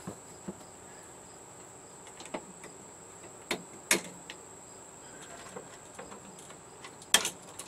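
A few sharp clicks and snaps of plastic tabs on a TV's back case being cut through with cutters, the loudest group near the end. A steady high-pitched whine runs underneath.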